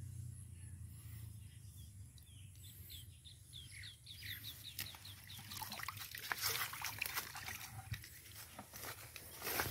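A bird's quick run of short high chirps, about six a second, followed by scattered rustling and clicking that grows louder near the end.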